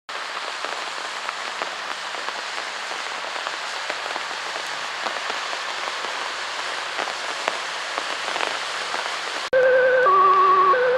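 Heavy rain falling steadily, with scattered sharp drop impacts ticking through the hiss. About nine and a half seconds in it cuts off abruptly and music starts, louder, with held wavering notes stepping between two pitches.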